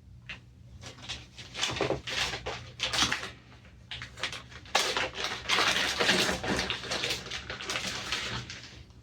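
Hands fetching and handling a new engine gasket and small parts: irregular clicks and rustling, becoming denser and louder about five seconds in.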